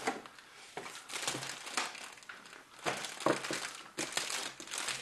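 Paper gift bag and plastic candy-bar wrappers rustling and crinkling as candy bars are lifted out and handled, in irregular spurts.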